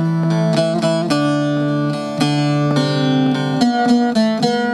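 Instrumental passage of a Kurdish song: a plucked string instrument plays a quick melody of separate, sharply struck notes.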